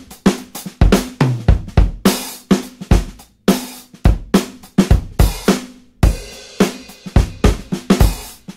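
Background music: a steady drum-kit beat with kick drum, snare and cymbals, sharp hits about twice a second.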